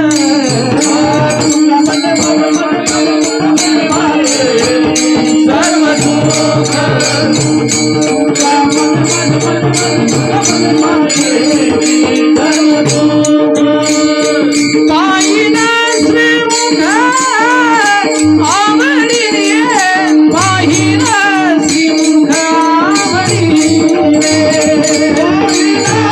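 Devotional Varkari bhajan music: a man singing an abhang over a steady drone, with jingling hand cymbals keeping a fast, even rhythm. About halfway through the voice breaks into long ornamented runs that rise and fall.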